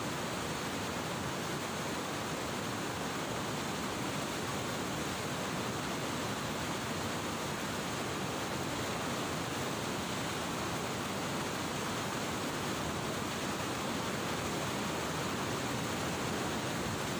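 Steady rushing of fast, flood-swollen river water churning through and below a weir, an even unbroken roar with no change in level.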